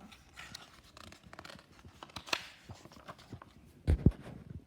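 Rustling and light clicks of a picture book being handled and its page turned, with a dull thump a little before the end.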